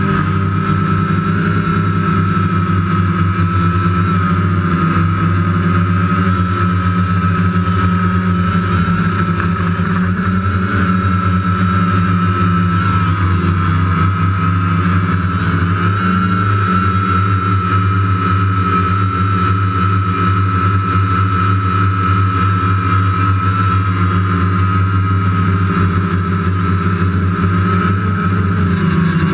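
DJI Phantom quadcopter's electric motors and propellers buzzing steadily in flight, heard close up from the GoPro mounted on the drone. A high whine holds nearly level over a low hum, wavering briefly about 13 seconds in and again near the end as the drone manoeuvres.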